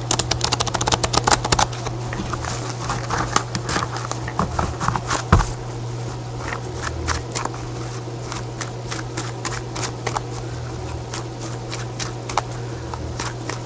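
Cards being handled: a quick run of rapid card flicks in the first two seconds, then scattered clicks and taps of cards, over a steady low hum.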